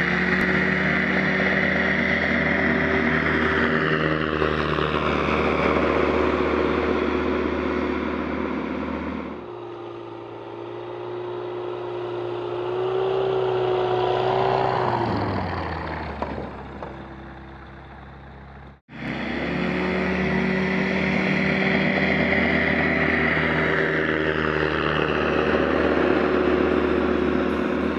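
The Rotax 912ULS engine and propeller of a Just Aircraft SuperSTOL running at high power as the plane takes off and climbs out. It is loud and steady. In the middle the sound is quieter and its pitch drops as the plane passes. About two-thirds of the way in it cuts off abruptly, then comes back loud and steady.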